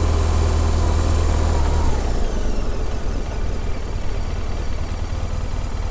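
2007 BMW R1200RT motorcycle's air-cooled boxer-twin engine slowing down, its low note dropping about two seconds in, then running steadily at low revs.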